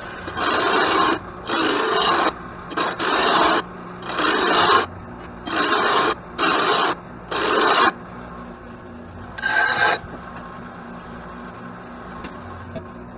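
Hand file rasping along a lawn mower blade's cutting edge in a series of separate strokes, about one a second, sharpening an edge nicked by rocks. The strokes stop after about eight seconds, with one last stroke near ten seconds.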